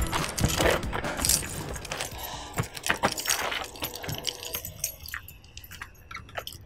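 Light jangling and scattered small clicks from objects being handled, fading away over the last couple of seconds.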